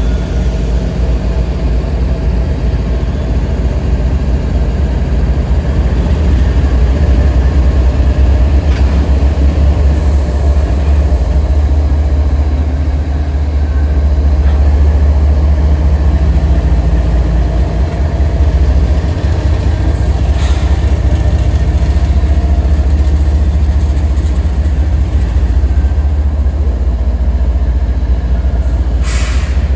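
Diesel locomotives of an empty CSX coal train running with a loud, steady low rumble, with a few brief sharp clicks over it.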